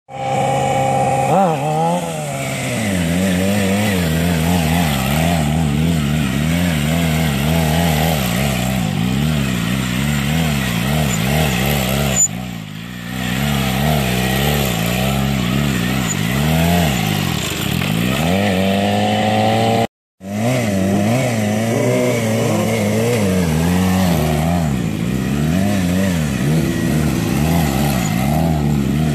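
Suzuki GSX-R600 inline-four engine revving up and down over and over as the throttle is worked to hold wheelies. The revs dip briefly about twelve seconds in, and the sound cuts out for a moment about twenty seconds in.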